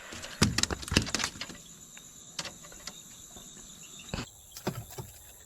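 Faint steady high-pitched insect chirring, with a few sharp clicks and knocks over it, most of them in the first second and a half.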